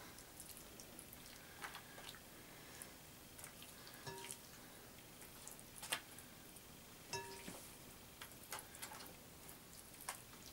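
Faint, scattered soft clicks and taps as pieces of raw fish are laid by hand onto the pie filling, a few of them brief ringing clinks against the tray.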